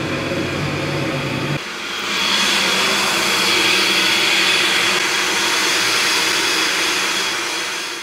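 Steady loud hiss of steam venting at a geothermal well, with a faint high whistle tone running through it. It takes over sharply about a second and a half in, replacing a lower hum.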